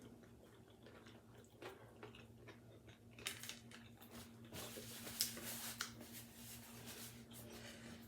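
Crackly crunching of a crusty toasted Italian-bread sausage sandwich, starting about three seconds in and loudest around the middle, over a few soft clicks at the start.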